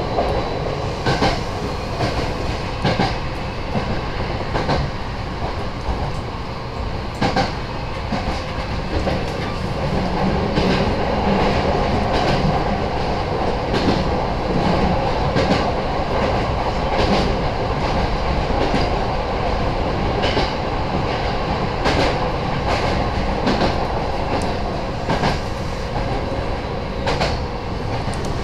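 Nose Electric Railway 7200-series electric train running along the line: a steady rumble with wheels clicking over rail joints at irregular intervals, heard from inside the leading car.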